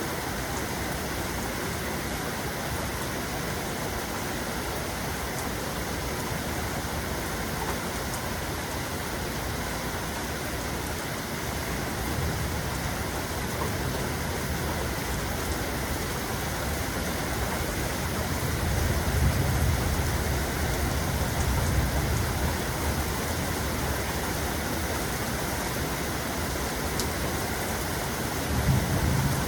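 Steady rain falling, with low rolling thunder rumbles swelling up about two-thirds of the way through and again near the end.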